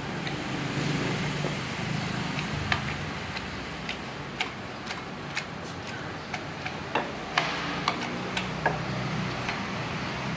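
Irregular light clicks and knocks of kitchen utensils during food preparation, over a steady low hum.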